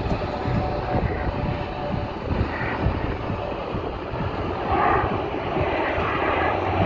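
Jet noise from a KAI T-50 Golden Eagle's single F404 afterburning turbofan as the trainer flies its display, a steady deep rushing sound heard from the ground.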